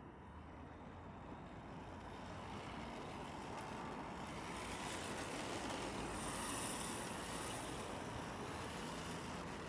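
Radio-controlled drift car running on asphalt: a hiss of sliding tyres and drivetrain that grows louder as the car comes closer, loudest about six to seven seconds in.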